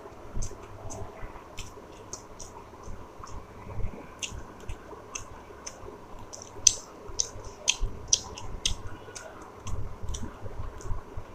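Close-miked chewing and eating: many irregular, sharp, wet mouth clicks and smacks, with soft low thumps.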